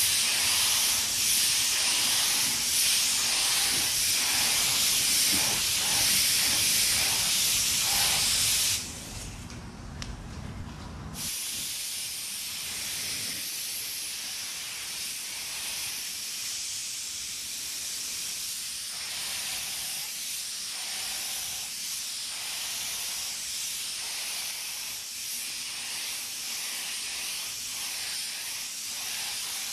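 Astro Euro Pro HE gravity-feed spray gun hissing steadily as compressed air atomises base-coat paint onto a car quarter panel. The hiss stops for about two seconds roughly nine seconds in, then resumes a little quieter.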